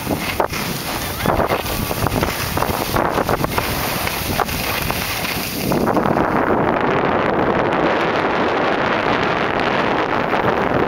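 Wind rushing on the microphone and skis sliding and scraping over packed snow while skiing downhill. About six seconds in, the rush gets louder and fuller.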